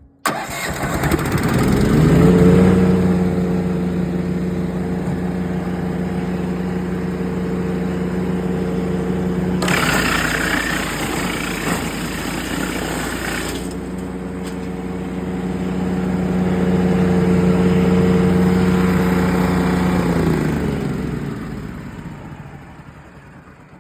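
Woodland Mills TFG55 gas wood chipper starting: its small engine catches and revs up to a steady run. About ten seconds in, a loud noisy grinding of about four seconds drowns the engine tone as a branch is fed through and chipped. The engine then runs steadily again and winds down as it is shut off, fading away near the end.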